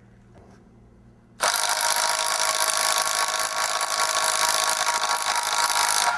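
A power drill starts up suddenly about a second and a half in and runs steadily with a Dewalt impact-ready drill bit cutting, a constant whining tone over the noise of the cut, until it stops at the end.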